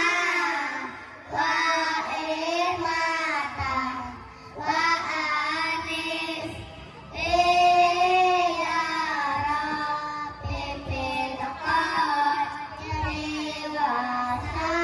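A group of young children singing a recitation together in unison, in phrases broken by short pauses for breath.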